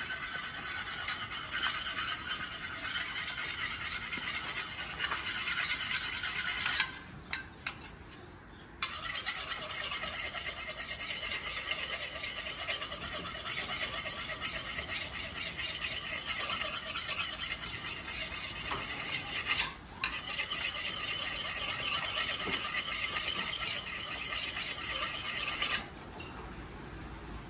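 Knife blade being sharpened on a sharpening steel: a rapid run of metal-on-metal scraping strokes. It breaks off for about two seconds around seven seconds in, pauses briefly near twenty seconds, and stops shortly before the end.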